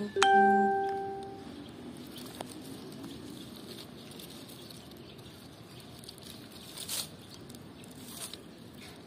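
A single bell-like chime struck just after the start, ringing out with a clear tone and fading away over about a second. After it, faint outdoor background with a couple of soft clicks near the end.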